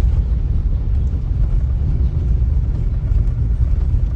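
Steady low rumble of a moving car: road and engine noise, even throughout.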